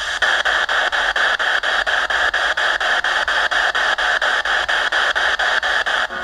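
Spirit box (ghost-box radio) sweeping through radio frequencies: loud hissing static chopped into short steps about five times a second, with a brief dropout near the end.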